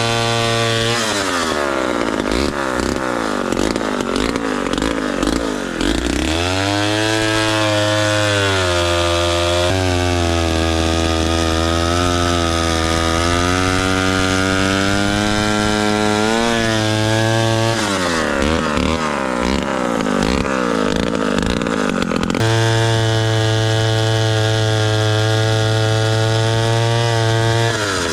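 A 1957 Danarm Fury chainsaw's 98cc Villiers 5F two-stroke engine running hard, its speed rising and falling. Twice it drops in pitch and goes rough as the chain bites into wood, then it picks up again to a steady high note.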